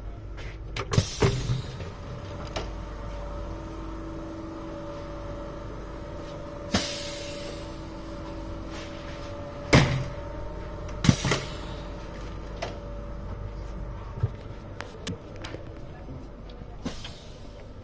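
Steady low rumble of a moving vehicle's interior, broken by scattered sharp knocks and clunks, two of them loudest about ten and eleven seconds in.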